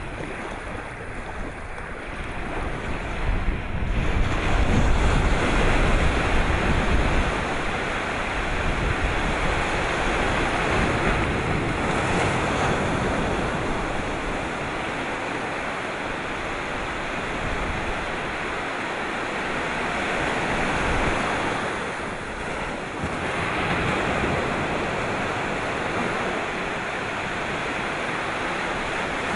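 Sea surf: waves breaking and washing in a continuous rushing noise that swells and eases, loudest a few seconds in. Wind rumbles on the microphone in the first several seconds.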